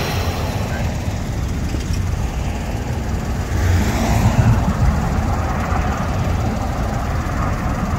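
Road traffic going by, with one car passing about halfway through, its noise swelling and fading.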